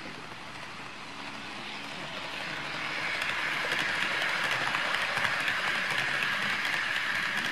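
HO gauge model of an orange 103 series electric train running along the layout track, its wheels on the rails growing louder from about two seconds in as it approaches and passes close by, with quick clicks over the rail joints.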